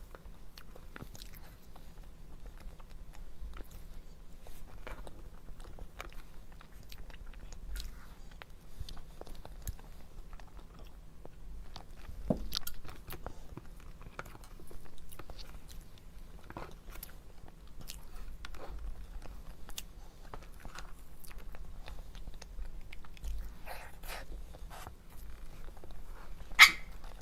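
Close-miked eating sounds: a person biting and chewing dessert, with scattered wet mouth clicks and smacks and one sharper, louder click near the end.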